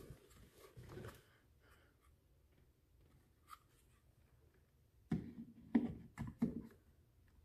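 Honeywell T9 smart thermostat's plastic body being pressed onto its wall-mounted sub base: mostly quiet handling, then a quick run of five or six short clicks and knocks about five seconds in as it snaps into place.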